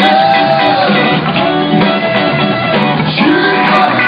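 A live rock band playing loud, with electric guitar and horns (saxophone and trumpet), picked up on a phone's microphone so it sounds dull and crowded, with no top end.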